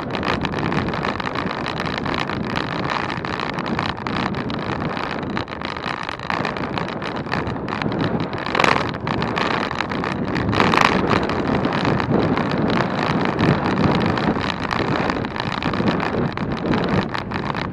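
Wind rushing over the microphone on a moving road bike, a steady loud noise, with two brief louder gusts about halfway through.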